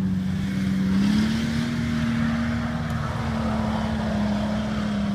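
Off-road vehicle's engine running at steady revs. Its pitch rises slightly about a second in and then holds.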